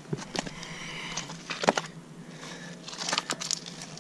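Irregular clicks and scrapes of pebbles and mussel shells being moved by hand among wet shoreline rocks, as he searches under them for green crabs.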